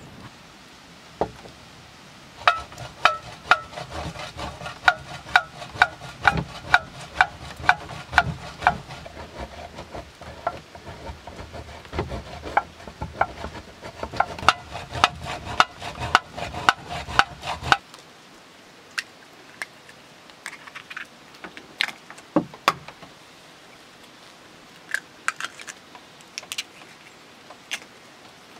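Metal utensil stirring in metal cookware, clinking against the side with a ringing tone about three to four times a second. About eighteen seconds in it cuts off, leaving only scattered light clicks and taps.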